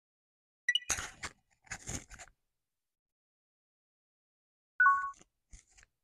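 Close-up handling noise of a tiny phone microphone being moved into place: two scratchy rubbing noises about a second apart, then near five seconds in a shorter scrape with a brief squeak.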